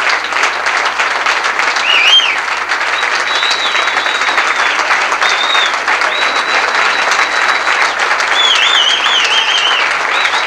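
Audience applauding steadily, with several high whistles over it, some held and some wavering up and down.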